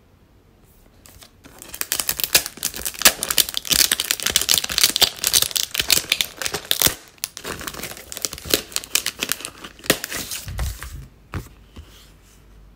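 Clear plastic packaging bag crinkling and crackling as a mouse pad is unwrapped and slid out of it, a dense run of crinkles that starts about a second and a half in and stops about a second before the end, with a soft low bump near the end.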